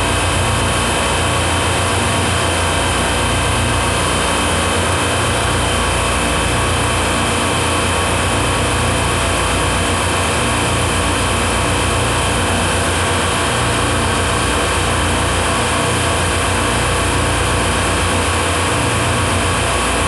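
Steady machine-room noise of a supermarket refrigeration rack's running compressors: an even, loud hum with several steady tones layered in it.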